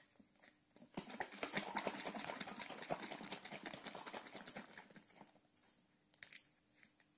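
A plastic bottle of Müllermilch flavoured milk being shaken hard by hand, the milk sloshing and rattling inside, from about a second in until about five seconds in. A few faint clicks from handling the bottle cap follow.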